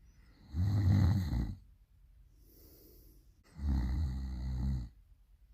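A person snoring loudly: two snores about a second long each, about three seconds apart, with a quieter breath between them.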